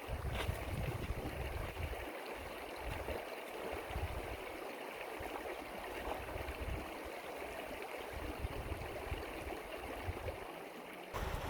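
Shallow stream running over rocks, a steady rushing of water, with an uneven low rumble underneath. The sound changes abruptly near the end.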